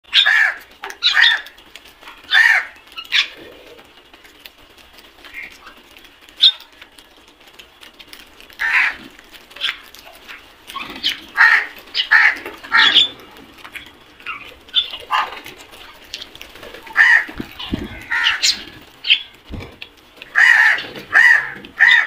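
A flock of house crows cawing, many short harsh calls coming in irregular clusters, with quieter calls in between. Two brief low thuds come near the end.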